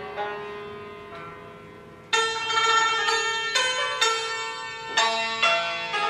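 Background music on a plucked or struck string instrument. A ringing note fades away over the first two seconds, then fresh notes are plucked about every half second.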